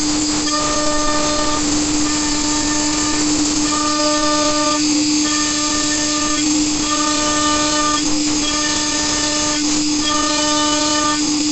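CNC router spindle running with a steady whine while its conical bit cuts a slowly rotating square wooden post. The cutting sound swells and eases in a regular cycle about every second and a half as the bit bites into the corners of the square stock.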